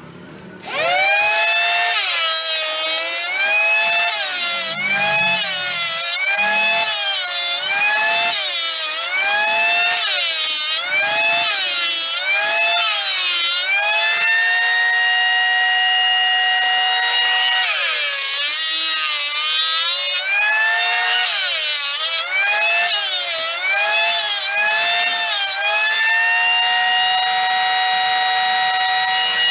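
Electric hand planer starting up and cutting wood in repeated passes. Its motor whine drops in pitch each time the blades bite into the board and climbs back between passes, about every second and a half. It runs unloaded at a steady pitch for a few seconds in the middle and again near the end.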